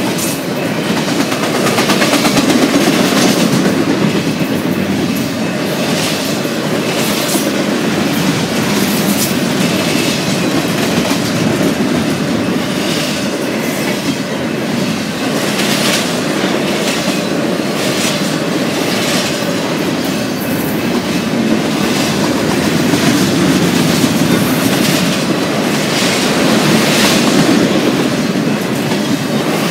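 Double-stack intermodal container train passing at speed: a steady rumble of steel wheels on rail from the loaded well cars, with irregular clickety-clack clicks over the rail joints.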